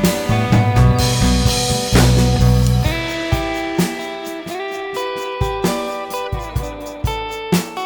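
Background music: guitar with drums and a bass line.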